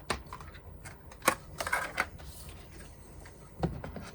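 A few sharp plastic clicks and taps with light rustling, from a phone and its glass screen-protector kit being handled. The loudest click comes about a second in, with another near the end.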